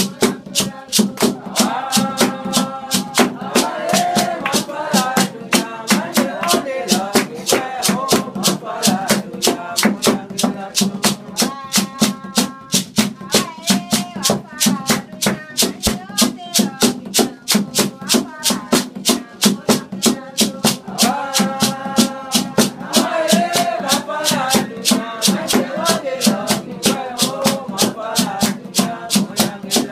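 Congregation singing a call-to-worship song in Mende, accompanied by a hand drum beaten in a steady rhythm of about three strokes a second. The voices swell a couple of seconds in and again a little past twenty seconds, and fall back under the drum in between.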